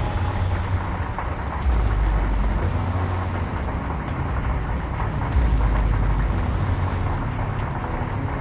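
Thunder rumbling in deep, rolling swells, growing louder about two seconds in and again a little after the middle, over a steady hiss of rain.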